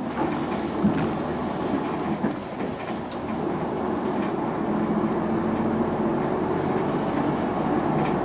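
Interior running sound of a 2006 Isuzu Erga PJ-LV234L1 non-step city bus on the move: steady diesel engine drone with body and fittings rattling, and a sharp knock about a second in.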